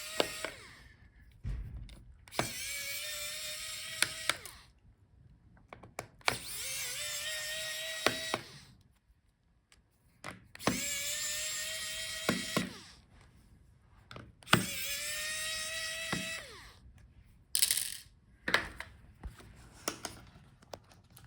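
Small electric precision screwdriver backing out the battery's Torx screws: about five runs of a motor whine, each about two seconds long, rising in pitch as it spins up and then holding steady, with pauses between screws. Near the end come a few scattered clicks and light knocks as parts are handled.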